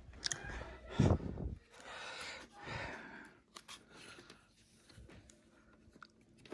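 Quiet handling noises with a few short clicks and a brief thump about a second in, along with soft breaths.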